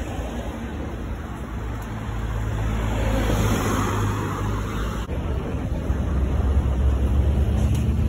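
Street traffic: cars running along a city road beside the pavement, a steady wash of road noise with a low rumble, swelling about three seconds in.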